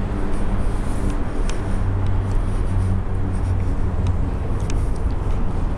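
A motor vehicle's engine running with a steady low hum, plus a few faint ticks.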